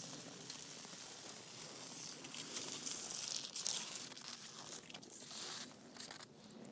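Crunching, rustling noise of footsteps on snow, loudest about three to four seconds in.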